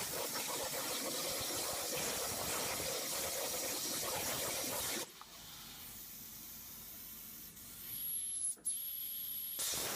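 A 300-amp Hypertherm plasma cutting arc hissing loudly as the CNC torch cuts. About halfway through it drops to a quieter hiss for a few seconds, then the loud hiss returns near the end.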